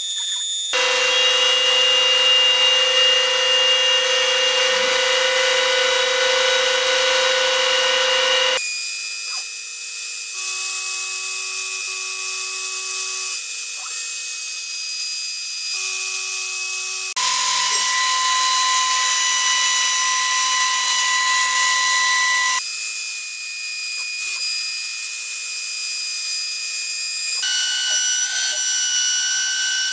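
Shapeoko 3 CNC machine's trim router spinning and milling grooves in birch plywood: a steady high-pitched whine over a cutting noise. It comes in several stretches that switch abruptly from one to the next, and the whine's pitch is different in each.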